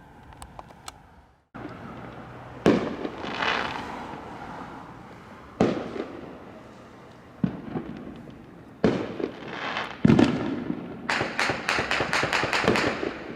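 Fireworks going off: loud, sharp bangs a second or two apart, some trailing into crackle, then a rapid string of cracks, about six a second, near the end.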